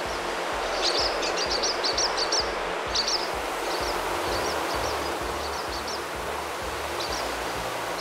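A flock of starlings in a murmuration: a steady rushing whoosh of wings with many short, high chirps and squeaks over it. The chirps come thickest from about one to two and a half seconds in, then more sparsely.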